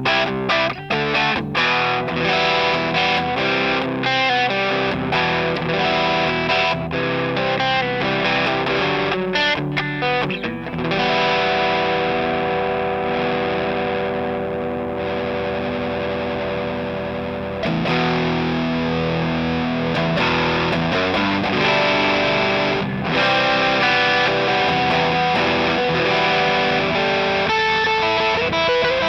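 Electric guitar played through an Eternity-style overdrive pedal, giving a driven, distorted tone. Short choppy chords and notes for about the first ten seconds, then a chord left ringing for about six seconds, then riffing again.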